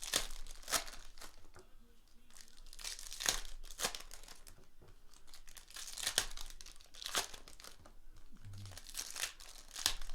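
Foil trading-card pack wrappers crinkling and tearing as packs are ripped open, in irregular crackles with the loudest ones a second or more apart.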